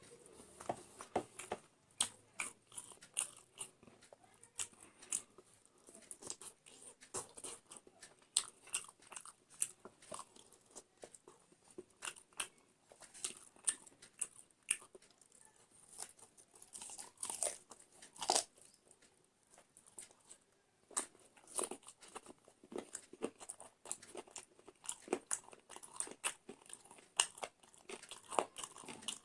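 Close-up chewing and crunching of food, a person eating curry with rice and salad: many short, irregular crunches and mouth sounds, a few louder bites among them.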